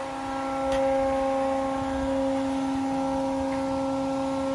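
Hydraulic power unit of an automatic honing machine running with a steady, even hum, and a single sharp click about a second in.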